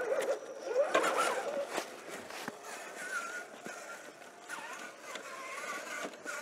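Whine of an RC4WD Trail Finder 2 scale rock crawler's electric motor and gearbox, rising and falling in pitch with the throttle, with scattered sharp clicks.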